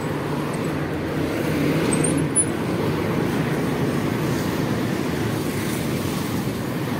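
Road traffic: the steady rumble of motorbike and car engines and tyres going past on a busy street, with one brief knock about two and a half seconds in.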